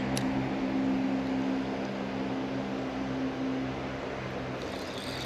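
A steady low mechanical hum, like a distant engine or machine, that fades out about three-quarters of the way through. There is one sharp click just after the start, and insects start chirping near the end.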